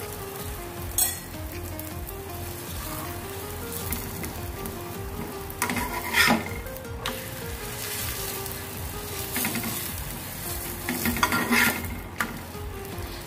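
Chapati sizzling in oil on a hot cast-iron tawa, with a metal spatula clicking and scraping against the pan about a second in, around six seconds in, and near the end.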